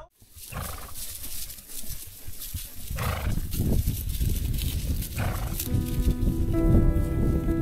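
Horses, with a low rumble of movement throughout and short, loud horse calls about three seconds and five seconds in. Music with held chords comes in about two thirds of the way through.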